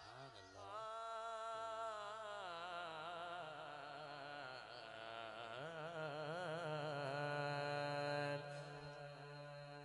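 A boy's voice singing a naat (devotional praise of the Prophet) into a microphone: one long, wavering, ornamented phrase. A low steady drone comes in underneath about halfway through.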